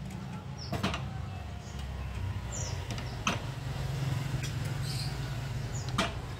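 Three sharp metal clinks of a wrench working the clutch cover bolts on a Vespa two-stroke engine, over a steady low hum.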